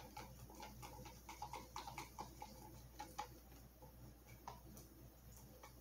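Near-quiet room with faint, irregular small clicks and ticks, a few each second.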